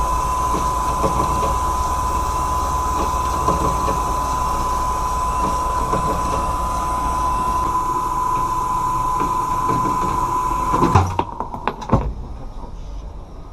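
Band saw cutting 304 stainless steel, a steady running sound with a high, even whine from the blade in the cut. About eleven seconds in it changes: a couple of sharp clunks about a second apart, and the sound falls away much quieter.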